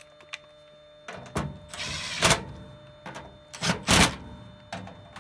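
Cordless impact driver with a nut-runner bit driving sheet-metal screws into a furnace panel, in several short bursts of rattling hammering that start about a second in.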